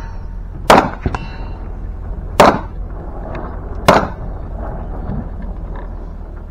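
Three rifle shots, about a second and a half apart.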